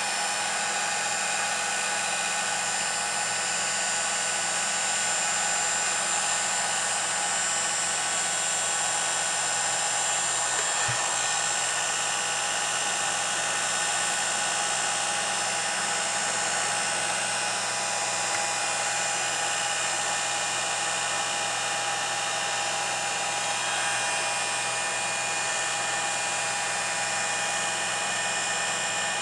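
Heat gun running steadily, a constant whine of its fan motor over the rush of air, heating the adhesive that holds a touchscreen digitizer to its metal frame so it can be pried loose.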